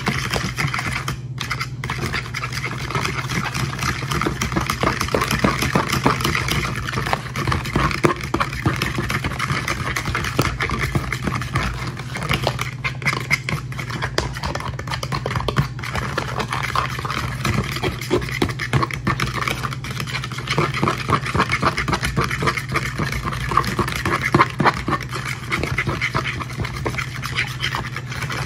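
An egg wash of eggs and heavy cream being stirred briskly in a small bowl: rapid, continuous clicking and scraping of the utensil against the bowl, over a steady low hum.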